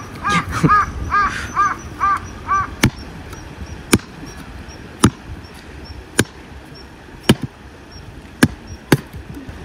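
A crow cawing in a quick run of repeated calls, then sharp knocks about once a second as a hatchet with a stick of wood set on its blade is knocked down against stone paving, splitting the stick for kindling.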